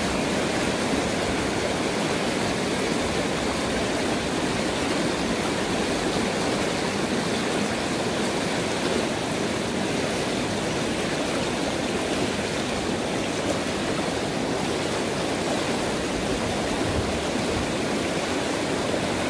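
River water rushing over rocks in a fast, shallow riffle: a steady, even rush of flowing water.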